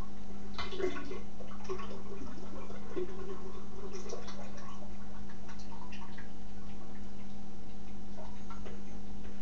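Sugar water poured from a plastic pitcher through a funnel into a glass carboy, with faint irregular splashing and trickling, over a steady low hum.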